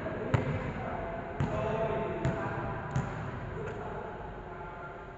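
Volleyball bouncing off a hard gym floor, about five sharp smacks at uneven intervals under a second apart, over a murmur of voices.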